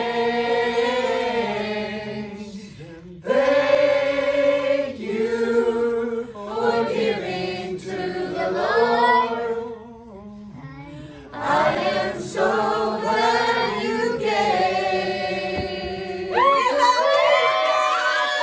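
A mixed group of adults and children singing together, holding long notes in phrases with short breaks between them. Near the end the singing gives way to cheering and whoops.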